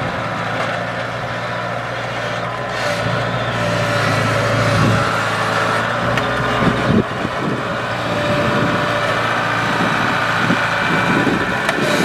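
Kubota DC-70 Plus rice combine harvester running steadily as the tracked machine drives past, with a couple of knocks about seven seconds in.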